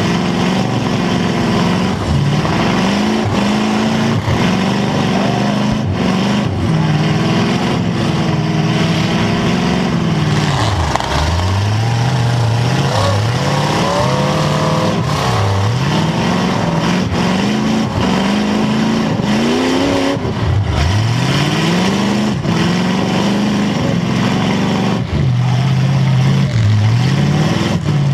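Demolition derby car's engine heard from inside the car, revving up and falling back over and over as the throttle is worked, with a few sharp knocks from hits or jolts.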